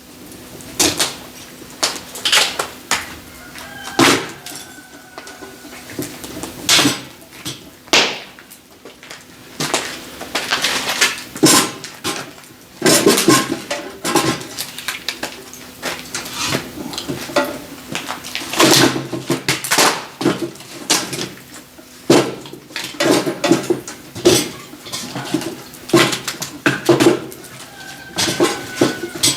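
Split firewood logs knocking and clattering against one another as they are handled and stacked, in many irregular sharp strikes.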